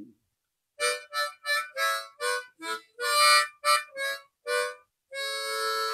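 Blues harp (diatonic harmonica) played solo: about ten short notes in quick succession, then one long held note near the end.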